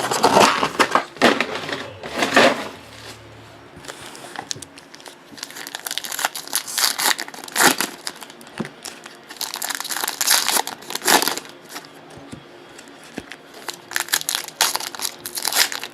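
Trading card pack wrappers from 2018 Panini Prizm World Cup packs crinkling and tearing open, in irregular rustling bursts as the packs are ripped and the cards handled.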